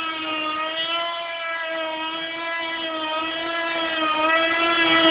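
Traxxas Nitro Vee RC boat's nitro engine running at speed: a steady, buzzing whine that holds nearly one pitch with a slight waver and grows louder toward the end.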